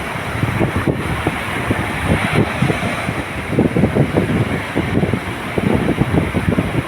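Sea waves washing ashore, with wind buffeting the microphone in a constant low rumble.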